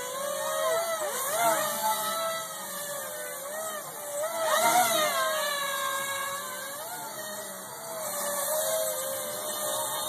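Homebuilt V-tail multirotor flying low, its four electric motors and propellers (900kV motors with 11-inch props in front, 1650kV motors with three-bladed 7-inch props at the rear) giving a buzz of several tones. The tones waver up and down as the motors speed up and slow down, with sharper rising and falling swoops and louder moments about a second and a half in and again around four and a half to five seconds in.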